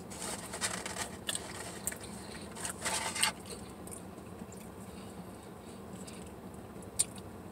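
A person eating: chewing and handling food and its wrapping, with small crinkles and crunches in the first three seconds. A single sharp click comes near the end.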